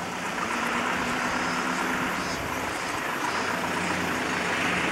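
Steady rush of river water flowing over and between rocks, with a faint steady low hum underneath.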